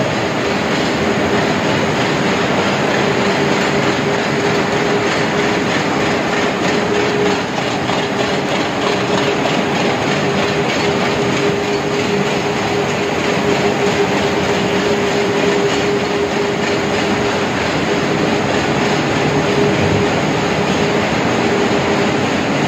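Poultry slaughter and evisceration line running: overhead shackle conveyors and rotary evisceration machines make a steady, loud mechanical clatter over a constant hum.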